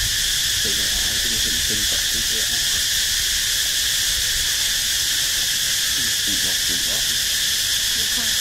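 Steady, high-pitched insect chorus droning without a break, with faint murmuring voices underneath.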